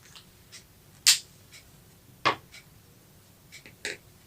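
A few sharp clicks or taps at irregular intervals, the loudest about a second in and just past two seconds, with fainter ticks between them.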